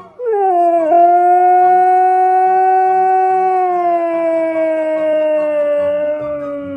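A husky gives one long howl lasting about six and a half seconds: the pitch dips at the start, holds steady, then sinks and falls away at the end. The dog is howling in answer to a husky howl played on a phone beside it.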